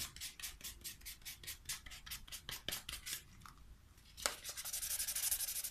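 Fine 1500-grit wet/dry sandpaper rubbed back and forth along a paperback's newsprint page edges to sand off the yellowing. The strokes come quick and rasping, about five a second, then pause briefly. One sharp knock comes about four seconds in, and then the sanding turns faster and more continuous.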